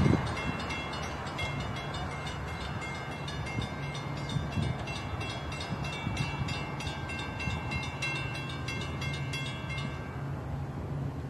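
Long Island Rail Road diesel train just after passing, loudest at the very start and then a steady low engine drone with rail noise. Faint high ringing tones and rapid clicking ride over it and stop near the end.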